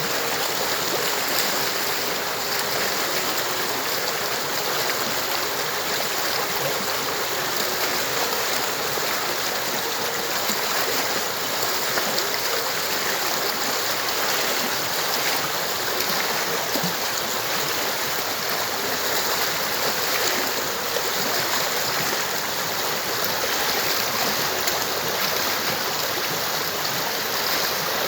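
Stream water flowing steadily over rocks, a continuous rushing and babbling.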